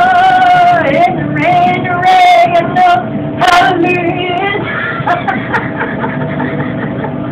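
A voice singing loud, long held notes, then laughter, with a faint steady hum underneath.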